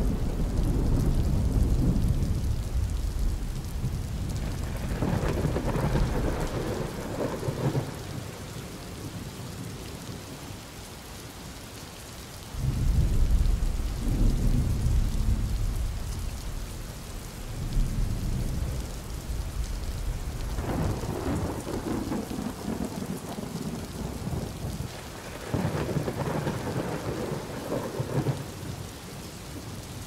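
Steady rain falling, with several deep rolls of thunder over it, each lasting a few seconds; the loudest starts suddenly a little under halfway through.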